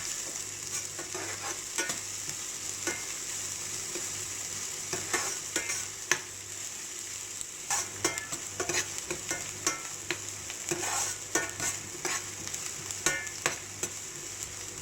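Sliced onion sizzling in hot oil in a frying pan, sautéing toward golden brown. A steady high hiss runs throughout, with irregular clicks and scrapes of a spoon stirring against the pan.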